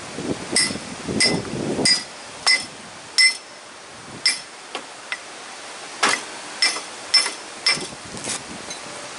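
Hammer striking steel: sharp metallic blows with a ringing note, about a dozen at an irregular pace, with a lull in the middle.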